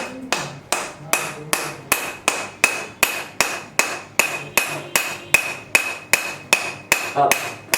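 Chiropractic hammer tapping a metal adjusting chisel in a steady, even run of about two and a half strikes a second, each strike with a short metallic ring.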